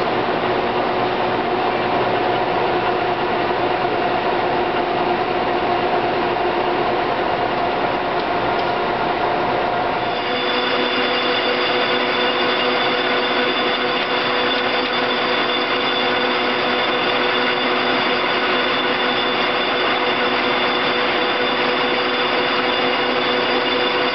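LeBlond 24-inch hollow-spindle engine lathe running under power, its geared headstock giving a steady mechanical whine over a busy rattle. About ten seconds in, the set of whining tones changes abruptly and then holds steady.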